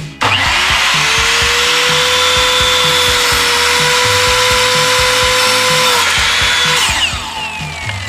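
Electric power saw starting up, running with a steady whine while cutting a 45-degree angle in a wooden trim board, then switched off about seven seconds in and winding down with falling pitch. Background music with a steady beat underneath.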